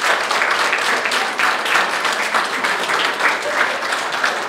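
Audience applauding: many people clapping at once, with a few voices mixed in.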